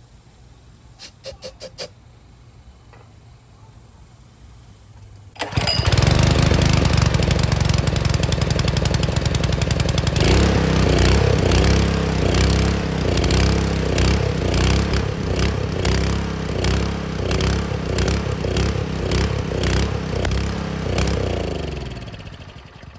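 Honda GX200 single-cylinder engine on a pressure washer, with its carburetor just replaced. It fires up about five seconds in after a few short rattles, then runs loud and steady. Its note changes about ten seconds in, and it is shut off and dies away near the end.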